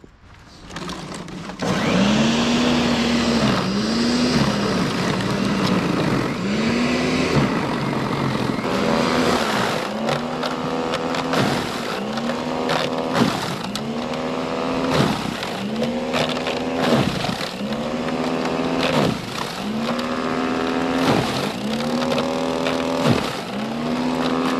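Greenworks 13-amp 20-inch electric snow blower running under heavy load in plow-packed snow. Its motor pitch sags and recovers again and again, about every one and a half to two seconds, as it bogs down in the pile, over a steady hiss of snow being churned and thrown. The sound starts about a second and a half in.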